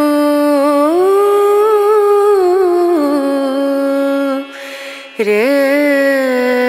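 Background music: a solo voice slowly singing long held notes that slide from one pitch to the next, with a brief pause for breath about four and a half seconds in.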